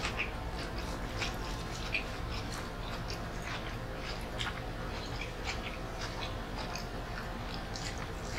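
A person chewing a mouthful of food, with many small, irregular mouth clicks and smacks over a steady low background hum.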